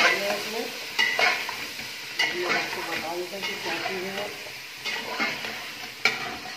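Chicken pieces sizzling in oil with yogurt and spices in a stainless steel pot while a spoon stirs them, scraping and knocking against the pot a few times.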